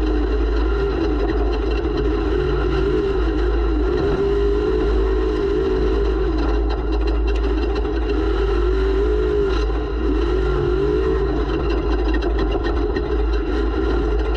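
Off-road race vehicle's engine heard from on board, running hard with its revs wavering up and down continuously, over a steady heavy low rumble.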